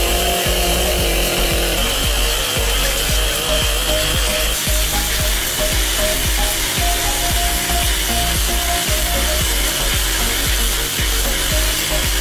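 Engine-driven abrasive rail grinder working through the steel of a railway rail: a steady high whine over rough grinding.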